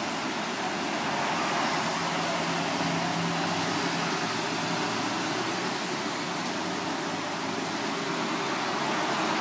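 Steady street ambience: a continuous wash of traffic noise, with a faint low hum for a few seconds in the middle.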